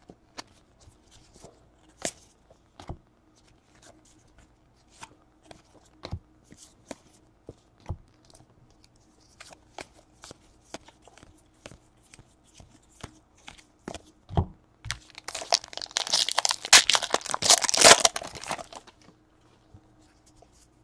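Trading cards handled and flipped by hand, with light scattered clicks and taps of card on card, then a few seconds of loud crinkling and tearing, a card pack's wrapper being ripped open.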